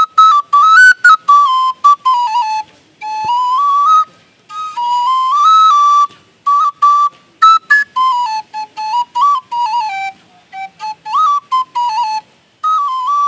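Bansuri (bamboo transverse flute) blown by mouth, playing a single melody in short phrases of stepped notes with brief breaths between them.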